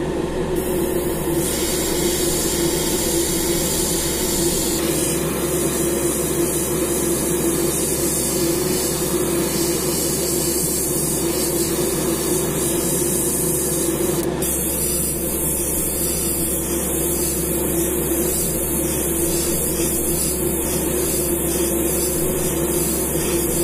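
Airbrush spraying paint onto a jerkbait: a steady hiss of air and paint that starts about a second and a half in and breaks briefly a little past halfway. A steady low hum runs beneath it.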